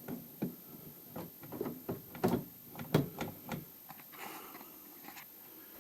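Light knocks, clicks and rustling from a plastic center console and gear shifter being handled and pressed into place, with a few sharper taps in the middle.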